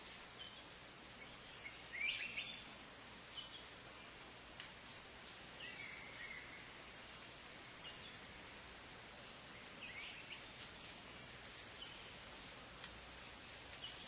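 Forest ambience: a steady high insect drone, with short high chirps every second or so and a few brief bird calls about two, six and ten seconds in.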